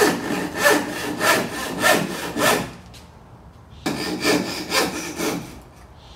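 Handsaw cutting into a soft spruce board with back-and-forth strokes a little over half a second apart. The strokes pause for about a second near the middle, then start again as the next of a series of closely spaced cuts is made to break out the waste wood.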